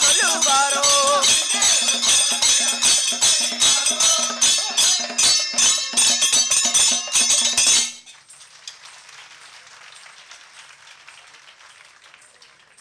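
Kanniyarkali folk music: voices singing for the first second or so over fast percussion strokes and ringing metal cymbals. The music stops abruptly about two-thirds of the way through, leaving a faint background murmur.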